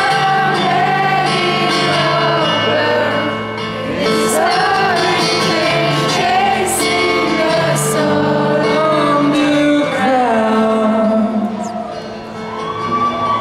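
Live acoustic guitar with wordless sung melody, held notes that rise and fall, in a large hall.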